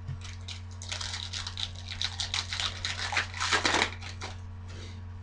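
Trading cards and their foil pack being handled and opened: a quick run of crisp crinkling and rustling clicks that stops about four seconds in, over a steady low electrical hum.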